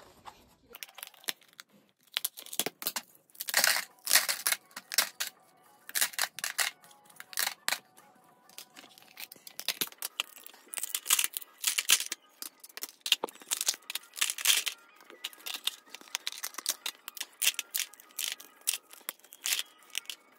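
Ice cubes cracking free of plastic ice-cube trays and clattering into a plastic storage bin, with the plastic trays and lids clicking and knocking as they are handled. The sound is a long run of sharp cracks and clicks that come in clusters.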